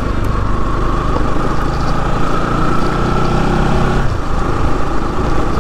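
Bajaj Pulsar NS200's single-cylinder engine running steadily under way on a rough gravel track; the engine note drops about four seconds in.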